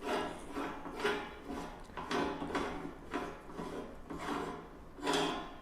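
Plastic burger-press parts being handled: a string of uneven rubbing and scraping strokes, roughly one or two a second, as the attachment and its nozzles are fitted together.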